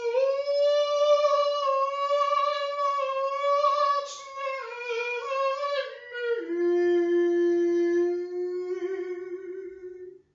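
A man singing into a handheld microphone without clear words: a long, high note that wavers slightly for about six seconds, then a drop to a lower note that is held steadily.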